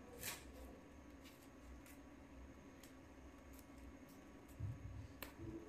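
Near silence with faint handling noise: a few soft clicks and rustles of masking tape being wrapped and pressed around the stem of a handmade foam leaf branch, over a faint steady hum.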